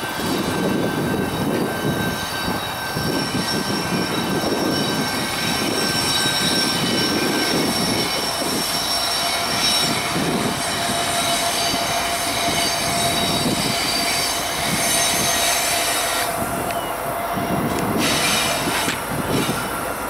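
Kansas City Southern diesel freight locomotives rumbling slowly past as the train turns through a curve, with steady high-pitched wheel squeal over the rumble; the squeal changes pitch about a third of the way through.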